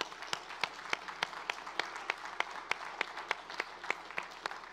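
Congregation applauding, with one nearby clapper keeping an even beat of about three claps a second; the applause thins out near the end.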